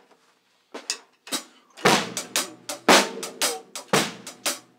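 Drum kit playing a half-time shuffle groove: bass drum on the one and snare on the three under a shuffling hi-hat, with a loud hit about once a second. The playing starts softly about a second in and settles into a steady rhythm.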